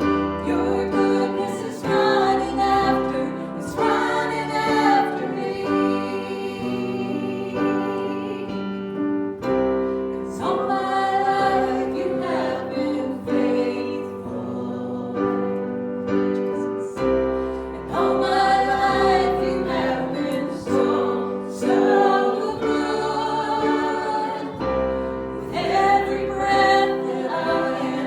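Group of voices singing a slow hymn with piano accompaniment, in long held phrases.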